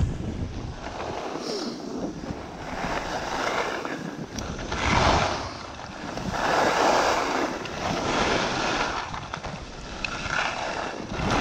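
Wind rushing over the microphone, with skis hissing on snow. The rush swells and fades several times and is loudest about five and seven seconds in.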